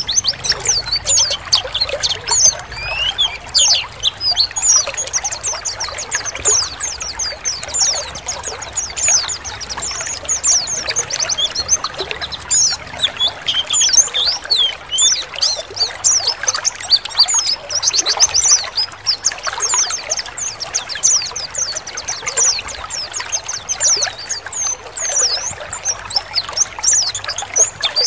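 Many white-eyes (pleci) chirping and twittering together in fast, overlapping calls, over a steady sound of trickling water. It is a flock or colony 'ngalas' recording used as a lure to set caged pleci singing.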